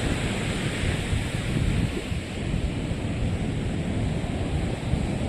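Wind buffeting the microphone over the steady wash of ocean surf on a beach: a continuous, gusty rushing noise.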